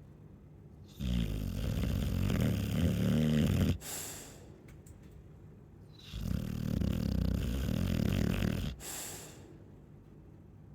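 Chow chow dog snoring: two long snores of about two and a half seconds each, each ending in a short hissing breath, with quieter breathing in between.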